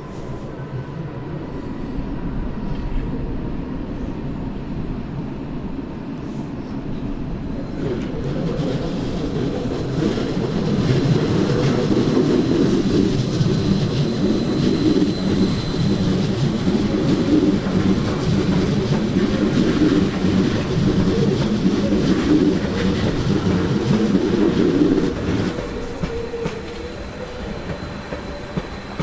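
A passenger train running along the station tracks, its rumble and wheel clatter swelling about eight seconds in and easing off near the end, with a thin, steady high-pitched wheel squeal over it.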